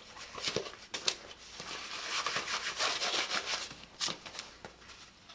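Handling noises on a workbench: a few light knocks, with a stretch of cloth rubbing on a vinyl bag in the middle.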